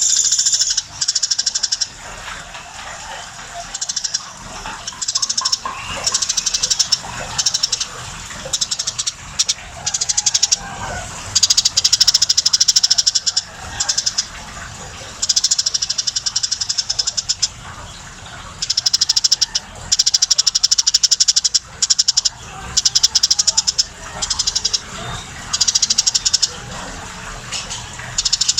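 A tame pet sparrow chirping insistently in repeated bouts of fast, high, stuttering notes, each bout a second or two long with short pauses between.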